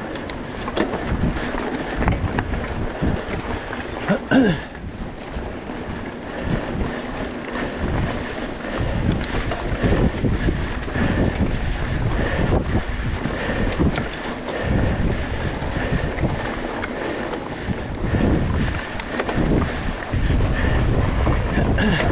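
Wind buffeting the microphone while a mountain bike rides fast over a dirt forest trail: a steady rush and rumble, with the tyres rolling over the ground and frequent knocks and rattles from the bike over bumps.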